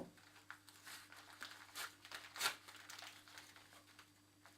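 Faint crinkling and rustling of a delivered parcel's packaging being handled, in short irregular rustles, with a steady low hum underneath.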